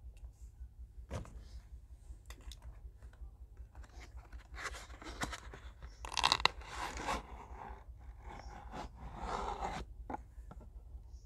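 Paperboard toothpaste carton being torn open and handled: crunching and tearing of the flap, loudest about six seconds in, then scraping as the tube slides out near the end, over a steady low hum.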